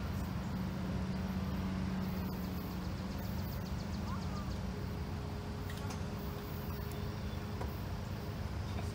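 Freight train rumbling steadily as it pulls away from the crossing, easing off slightly.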